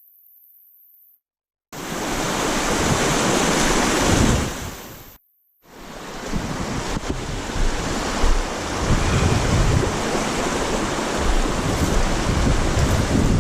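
Strong wind buffeting the microphone in gusts, over a steady rushing noise. It starts abruptly after a near-silent opening of under two seconds and drops out briefly about five seconds in.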